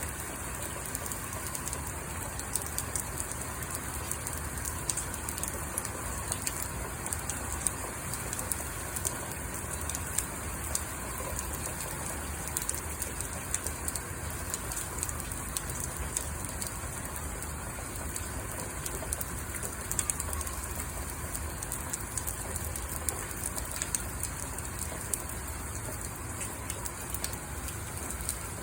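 Steady rain falling, with many separate drop impacts ticking through the even hiss.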